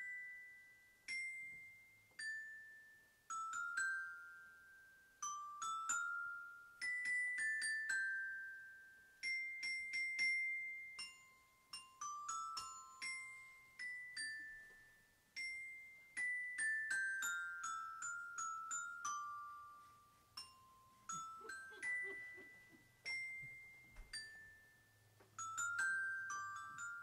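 Eight-note diatonic glockenspiel (no sharps or flats) played with mallets: a simple melody of single struck notes, each ringing out and fading. Several times the notes come in quick descending runs.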